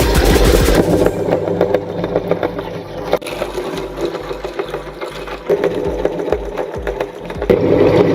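Electric meat grinder motor running under load, with scattered sharp cracks and clicks as oysters are ground through it.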